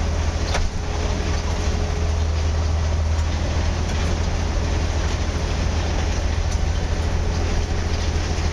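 Diesel engine of a railway tie-tamping machine running with a strong, steady low hum as the machine moves along the track. There is one sharp click about half a second in.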